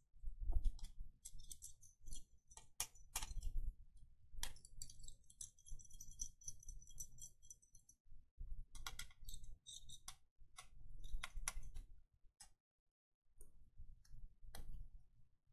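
Irregular small clicks, taps and rustling as the CPU cooler assembly is worked loose from a laptop motherboard by hand, with a short pause about thirteen seconds in.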